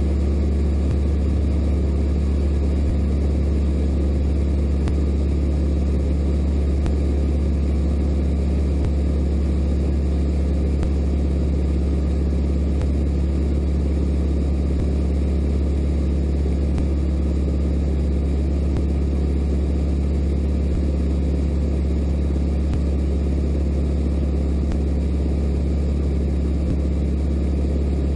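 Bushby Mustang II light aircraft's piston engine and propeller droning steadily in cruise flight, heard inside the cockpit with a haze of air noise over a strong low hum.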